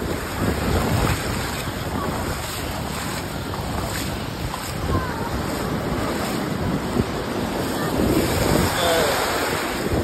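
Shallow ocean surf washing and fizzing over the sand at the water's edge, with wind buffeting the microphone. It swells louder near the end.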